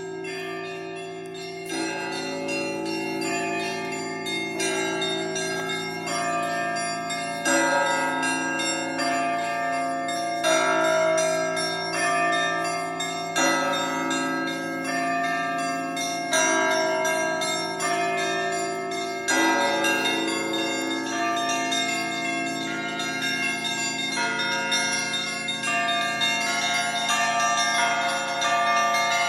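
Church bells ringing: several bells of different pitches struck in overlapping, continuous peals, with a heavier stroke coming about every three seconds.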